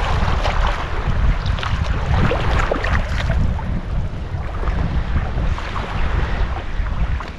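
Strong wind buffeting the microphone over choppy water, with irregular splashing and lapping of waves.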